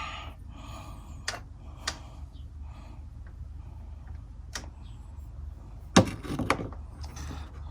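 A few separate sharp metal clicks and knocks from a spark plug and hand tools being handled, with the loudest clack about six seconds in followed by a short clatter, over a steady low hum.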